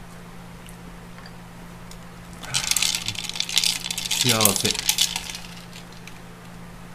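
Curry soba noodles slurped from a bowl: a wet, crackly hiss lasting about three seconds, starting a couple of seconds in, with a short rising hum near its end.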